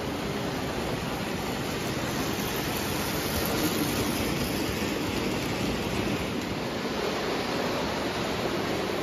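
Lionel O-gauge toy trains running on three-rail track: a steady rolling rumble of metal wheels and motors, which swells a little about three to four seconds in as a freight train comes out of a tunnel toward the camera.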